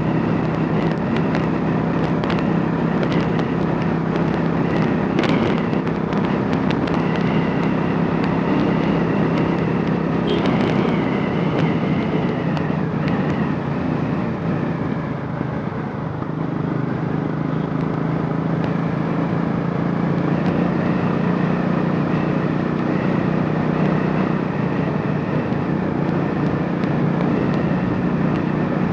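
Royal Enfield Classic 500's single-cylinder engine, converted from fuel injection to a carburettor, running steadily with many short sharp clicks over its beat. Its pitch sags briefly about halfway through and then comes back up.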